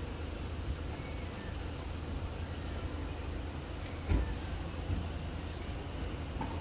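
Street traffic noise: a steady low rumble from the vehicles below, with a short knock about four seconds in as the filming phone is moved.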